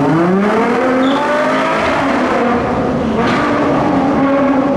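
Ferrari 812 GTS's naturally aspirated V12 accelerating, its note rising for about two seconds, then a short sharp crack about three seconds in before it settles to a steadier note.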